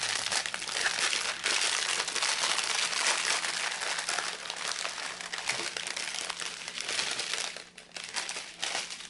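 A clear plastic bag packed with small baggies of diamond-painting drills crinkles steadily as hands squeeze and open it, easing off near the end.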